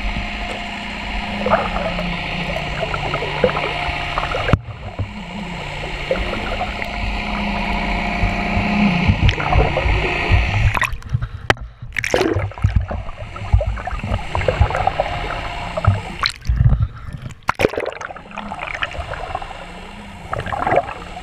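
Muffled water sloshing and gurgling heard through a GoPro's underwater housing, over a steady low hum from the charter boat's engine. The sound drops away briefly a few times past the middle.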